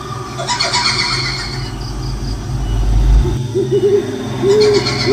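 Owl hooting in a horror sound-effects mix: a short wavering hoot, then two longer hoots in the second half, over a steady low drone. A deep rumble swells and cuts off suddenly a little after three seconds in.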